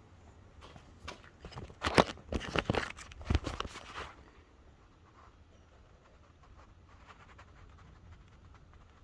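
Quick scraping and knocking from hand work at the bench for about three seconds, loudest about two seconds in, then only a few faint ticks.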